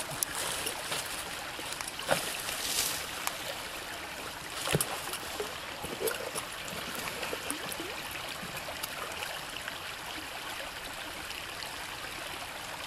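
Small rocky stream trickling and running steadily, with a couple of short clicks about two and five seconds in.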